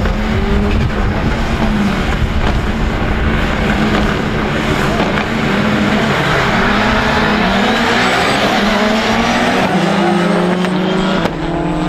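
Several rallycross Supercar engines revving hard on the start grid, then accelerating away together, their pitch rising in repeated steps as they shift up through the gears.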